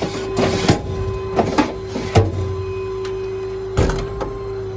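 Steady mechanical hum of the Ford F550 service truck's engine running, with a string of sharp knocks and short clatters, the loudest about two seconds in and another near four seconds.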